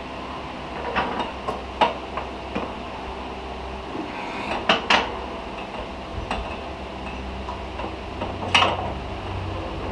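Sharp metallic clanks and clicks from a hydraulic shop press and steel gearbox parts as components are pressed onto a gearbox main shaft: a handful of separate knocks, two close together about halfway and a louder one near the end, over a steady low hum.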